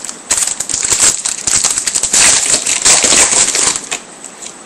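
Trading cards being flipped through by hand: a rapid run of dry clicks and rustles that lasts about three and a half seconds and stops shortly before the end.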